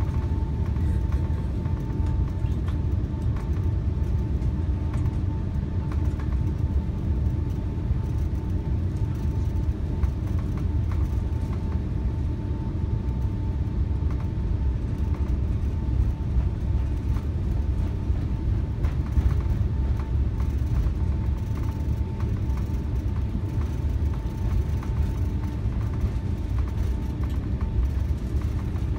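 Airbus A380 cabin noise as the airliner taxis onto the runway: a steady low rumble of the engines with a faint whine held at one pitch.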